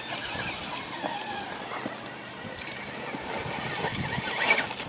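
Radio-controlled rock crawler's small electric drive motor whining, its pitch rising and falling with the throttle, as the tyres grind over rock and gravel. A sharp, louder knock comes about four and a half seconds in as the crawler clambers over a boulder.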